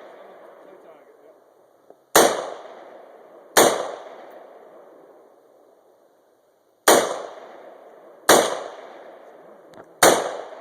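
AR-15 rifle firing five shots, in two quick pairs and then a single shot, each crack trailing off into a long fading echo.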